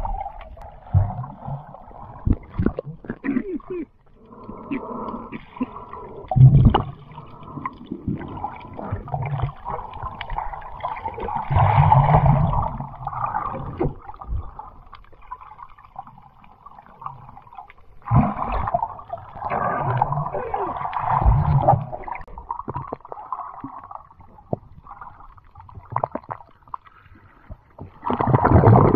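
Muffled underwater sound from a submerged camera: gurgling water and bubbles, coming and going in irregular louder swells.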